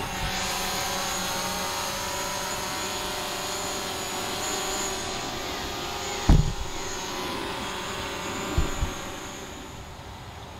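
Quadcopter drone's propellers and motors humming steadily in flight, a high whine riding over the buzz, easing off a little near the end. A loud low thump about six seconds in and two quick thumps a couple of seconds later.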